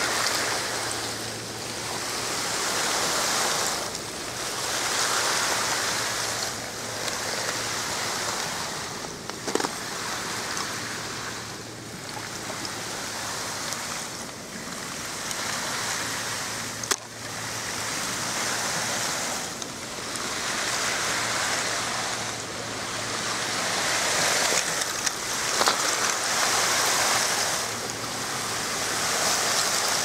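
Water washing in waves, the rushing noise swelling and fading every few seconds, with a few sharp clicks about 10, 17 and 25 seconds in.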